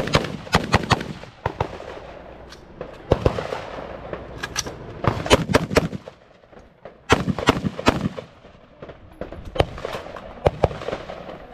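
AR-style rifle fired in quick pairs and short strings of shots. Each crack carries a short echo, with a brief pause about six seconds in before firing resumes.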